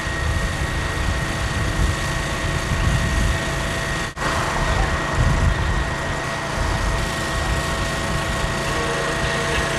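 A steady motor drone with a low rumble underneath, dropping out for an instant about four seconds in.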